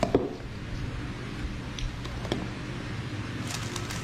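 Scattered faint clicks and taps of Rubik's-style speedcubes and stackmat timer pads being handled, over a low steady room hum, with a quick run of sharper clicks near the end.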